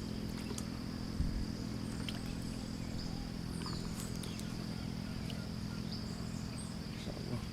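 Outdoor ambience: a steady high-pitched insect drone, with a steady low hum beneath it and a few faint clicks.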